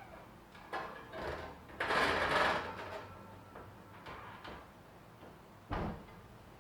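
Handling noises: a few short scraping sounds, the loudest and longest about two seconds in, then a single dull knock near the end.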